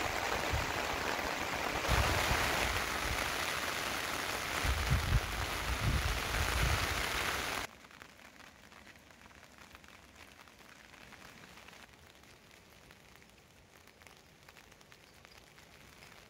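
Steady rain falling, with a few low bumps around the middle; it cuts off suddenly about eight seconds in, leaving only a faint hiss.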